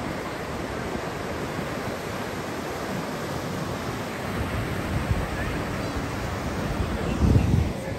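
Ocean surf breaking and washing below a pier, a steady rushing noise, with wind buffeting the microphone and a louder low gust about seven seconds in.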